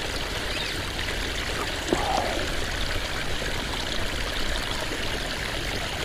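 Shallow stream running over rocks: a steady trickling of water, with a brief knock about two seconds in.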